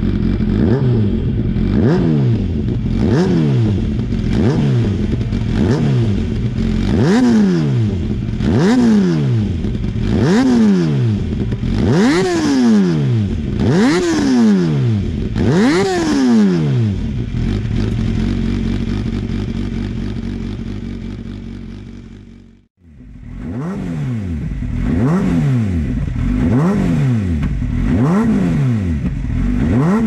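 MV Agusta F4 750's inline four-cylinder engine, breathing through F4-1000S header pipes, a catalyst-less link pipe and a Ridinghouse silencer, revved in quick throttle blips about every one and a half seconds over its idle, each rev rising and falling. The blips grow higher until about 16 s in, then it idles steadily. The sound cuts off abruptly a little after 22 s, and the blipping then resumes.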